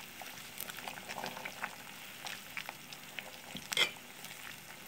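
Sotanghon soup broth boiling in an aluminium pot while a metal spoon stirs it, giving a steady bubbling hiss with small ticks and clinks. There is one sharper clink about four seconds in.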